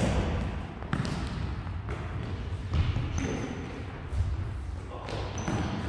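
A football being kicked and bouncing on a wooden sports-hall floor: several sharp thuds, roughly one a second, each ringing on in the hall's echo.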